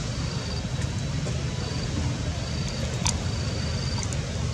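Steady low outdoor background rumble, with a thin high-pitched tone repeating in short stretches of under a second and a few faint clicks.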